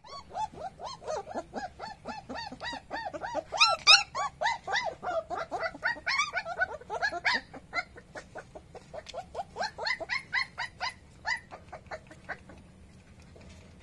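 Young German Shepherd puppy squealing and yelping over and over, short high rising-and-falling cries two or three a second, as an adult German Shepherd mouths and pins it. The cries thin out and stop about twelve seconds in.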